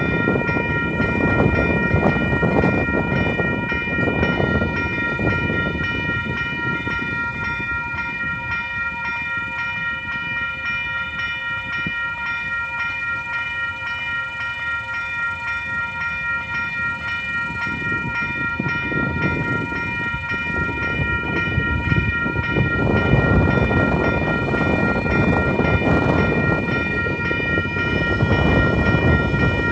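Railway level-crossing warning bells ringing steadily and continuously, a bright repeating metallic ring that carries on without a break. Underneath, a low rushing noise swells and fades several times.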